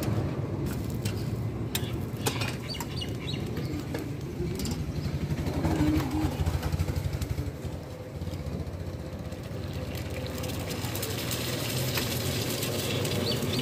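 Steel spatula clicking and scraping against a large iron tawa a few times, mostly in the first few seconds and once more near the end, over a steady low rumble.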